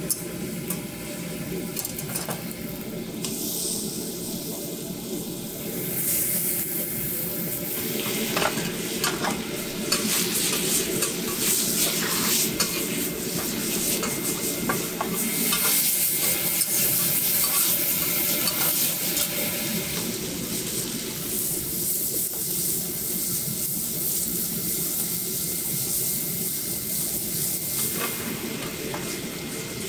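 Sliced meat and then eggs frying in oil on a flat steel griddle, with a metal spatula scraping and clacking on the plate. The sizzle swells about six seconds in and eases off after about twenty seconds.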